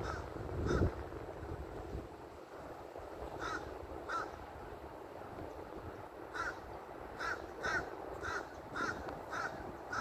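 Crows cawing from a tree: about ten short, separate caws, a few at first and then coming faster in runs in the second half. A brief low rumble sounds near the start.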